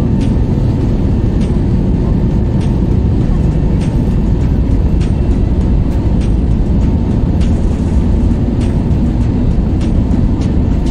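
Airliner cabin noise as the plane rolls along the runway: a loud, steady engine and rolling rumble with a thin steady whine, and light ticks every second or so as the wheels run over runway joints.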